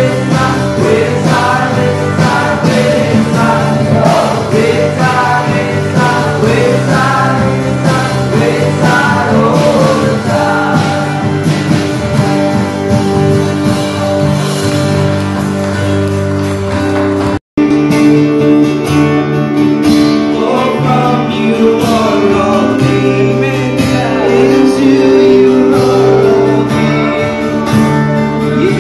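A song with singing over instrumental backing. The sound cuts out completely for a split second about two-thirds of the way through, then the music picks up again.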